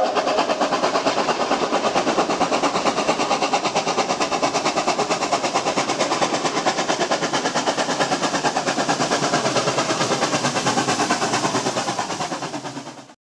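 Steam locomotive chuffing fast with an even, rapid exhaust beat, as at speed. It fades out near the end.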